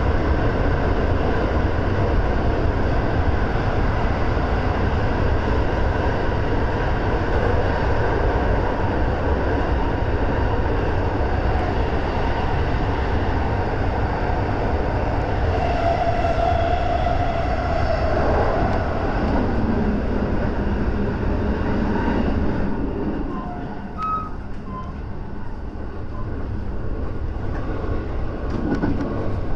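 JR West 223 series electric train running at speed through a tunnel, a loud, dense rail and wheel noise heard from the front cab, with a whine partway through. About 23 seconds in the noise drops suddenly as the train comes out of the tunnel into the open.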